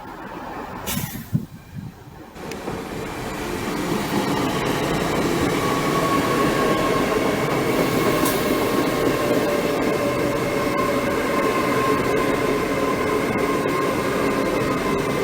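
Train running along the platform at a railway station: a brief knock about a second in, then the train's noise swells over a few seconds and holds steady and loud, with a faint high whine over the rumble.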